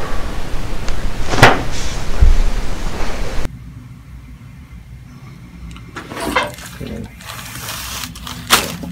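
Joints popping under a chiropractic adjustment: one sharp crack about one and a half seconds in over a steady hiss. The hiss then cuts out abruptly, and a few more short pops follow in a quieter room.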